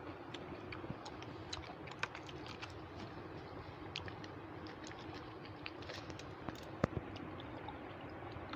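Irregular light clicks and taps of fingers and rings on a stainless steel plate while rice is mixed and eaten by hand, with a sharper click just before seven seconds, over a faint steady hum.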